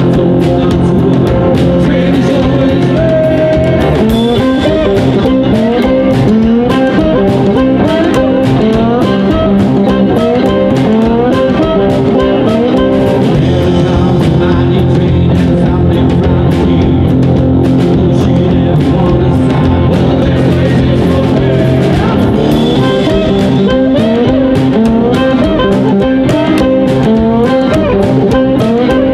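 A live blues band playing with two electric guitars, upright double bass and drum kit, steady beat and guitar lines throughout.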